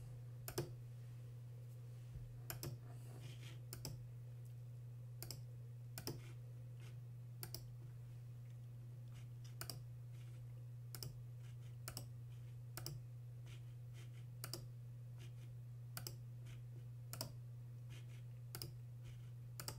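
Faint computer mouse clicks, about one a second at an uneven pace, over a steady low electrical hum.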